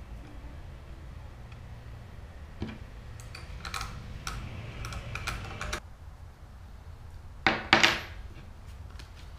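A .22 rifle being handled on a plywood workbench: small clicks and scrapes of hands working the rifle, then two sharp knocks in quick succession about three-quarters of the way through, the loudest sounds.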